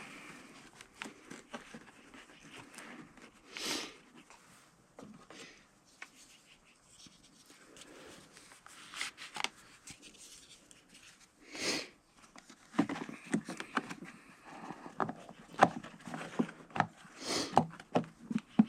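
Hands working on a small generator's plastic parts: scattered clicks, taps and rustles, coming thicker in the second half, with three brief swishes about 4, 12 and 17 seconds in.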